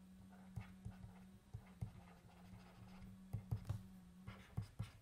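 Faint taps and light scratches of a stylus writing on a tablet screen, irregular and busier in the second half, over a low steady hum.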